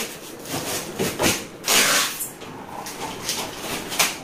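Handling noise as a front-load washing machine is tilted and shifted on its packing base: irregular scraping and rustling, loudest about two seconds in, with a sharp knock near the end.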